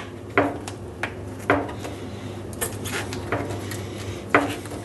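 A new rubber door seal being pressed by hand into the slot around a Siemens dishwasher's stainless tub: a few sharp knocks and clicks about a second apart as it is pushed home, over a low steady hum.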